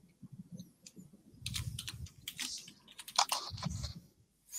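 Typing on a computer keyboard: a quick run of key clicks, sparse at first and then dense from about a second and a half in.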